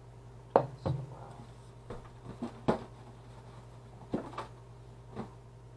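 Objects being handled and set down: a string of irregular knocks and clunks, the sharpest about half a second in, over a steady low hum.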